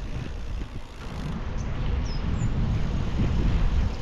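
Low, uneven rumbling noise with a fainter hiss above it. A few faint, short high chirps come in between about one and a half and two and a half seconds in.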